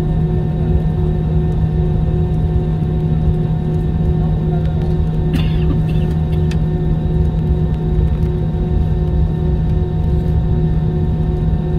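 Steady low rumble and hum of an airliner heard from inside the cabin, with several steady engine tones. There is a brief rattle about five seconds in.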